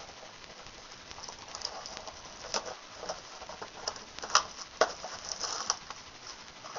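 Trading-card packaging being handled: light rustling with scattered sharp taps and knocks on cardboard, the loudest a few seconds in.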